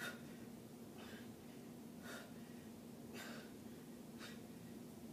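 A woman's short, sharp breaths, about one a second, in time with her repetitions of seated dumbbell shoulder presses, over a steady low hum.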